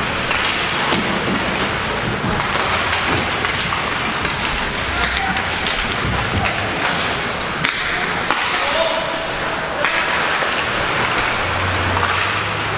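Ice hockey play in a rink: sticks and puck clacking and thuds against the boards over a steady scraping haze, with distant players' voices.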